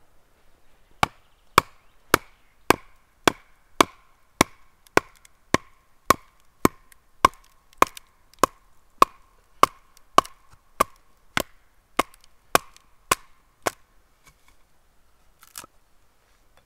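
Wooden baton knocking on the spine of a knife blade, driving it down through a short piece of firewood to split it (batoning): about two dozen sharp, evenly paced knocks, a little under two a second, each with a short ring. A single softer knock follows near the end.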